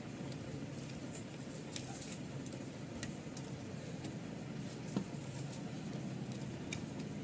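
Fingers rubbing oil over a steel dhokla plate: a faint, soft scratchy patter with a few small clicks scattered through it.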